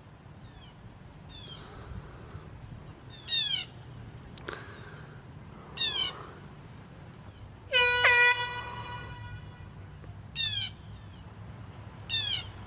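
Handheld air horn sounded in repeated short blasts that drop in pitch, with one longer, steady blast about eight seconds in.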